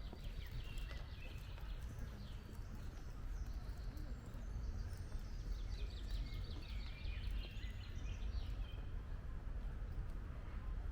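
Songbird singing trilled phrases, one in the first two seconds and a longer one from about four to eight seconds in, over a steady low rumble.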